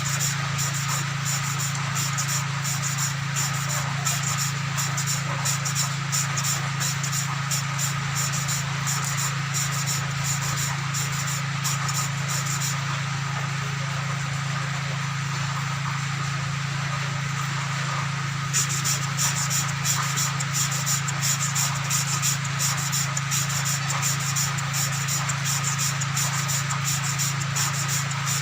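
An engine valve being lapped into its seat with grinding compound: a gritty, rapid scratching that pauses for several seconds about halfway and then starts again, over a steady low hum.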